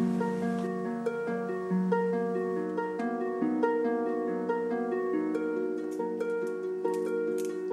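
Gentle background music on a plucked string instrument: single notes picked one after another over held lower notes.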